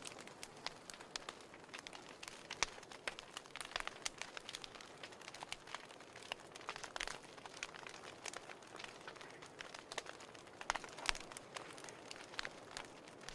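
Fire burning in a fireplace, crackling with irregular sharp pops over a soft steady hiss, a few pops louder than the rest.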